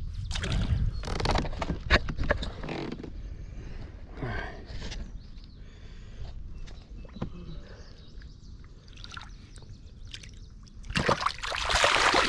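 Water sloshing as a catfish is held and let go in shallow water beside a kayak, then a loud splash about eleven seconds in as the released fish kicks off and swims away.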